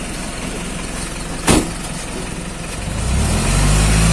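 Delivery truck's engine idling, then revving up and running louder about three seconds in. A single sharp knock sounds about a second and a half in.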